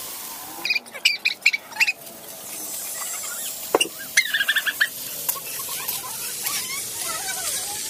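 Food sizzling in a wok of sautéed small sea snails as chopped cabbage is dropped in and stirred with a metal spatula. The hiss grows after a couple of seconds. Two runs of short, high, quickly repeated squeaks stand out, one early and one about four seconds in.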